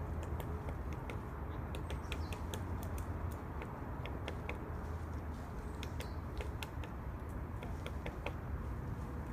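Woodpecker pecking at wood: sharp, irregular taps, two or three a second, not a rapid drumming roll, over steady low background noise.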